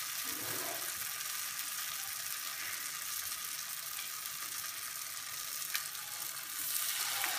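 Batter-coated moringa (drumstick) leaves deep-frying in hot coconut oil: a steady sizzle with a few small crackles. The sizzle grows louder near the end as another battered leaf goes into the oil.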